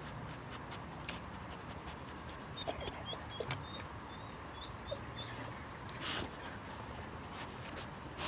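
Dog whimpering in a run of short, high squeaks, with scattered light clicks and a brief rush of noise about six seconds in.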